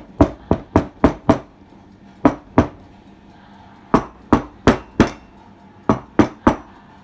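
Metal loaf tins filled with cake batter rapped down on a surface again and again: sharp knocks in short quick runs of two to five, the usual way of settling the batter and knocking out air bubbles before baking.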